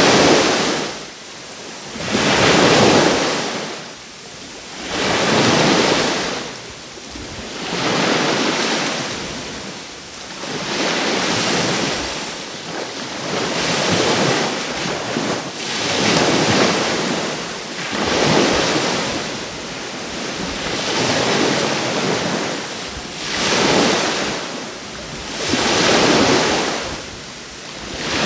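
Caribbean surf: small waves breaking and washing up the shore, one swell of rushing water about every two and a half to three seconds.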